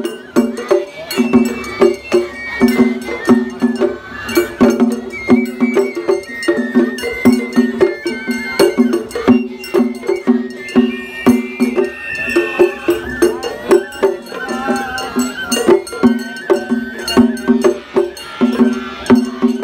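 Festival hayashi played on a float: shime-daiko drums and a large taiko beating a quick, steady rhythm, with a bamboo flute melody over the drums.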